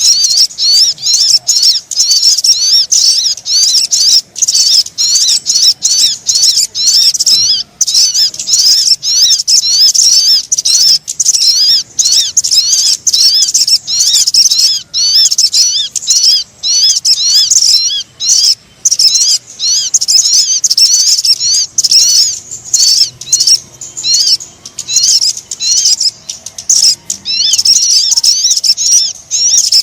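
Loud, high-pitched bird song: a fast, unbroken stream of twittering, wavering notes with many short breaks. It is a lure recording played to call down sogon birds.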